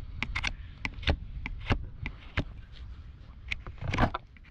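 Hoof knife paring the hard sole horn of a long-untrimmed, overgrown hoof: about a dozen crisp cutting strokes at an irregular pace, with a longer, louder scraping stroke near the end.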